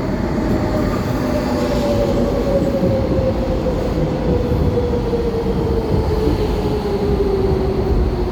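Docklands Light Railway train running with a rumble, its electric traction motors giving a whine that falls slowly and steadily in pitch as the train slows.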